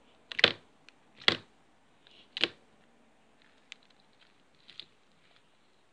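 Slime being squeezed and pressed by hand in a plastic tub, giving three loud sharp pops in the first two and a half seconds, then a few fainter clicks.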